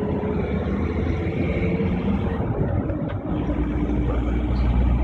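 Traffic rumble of trucks passing close by on a road. It runs steadily and deepens into a heavier low rumble about three seconds in.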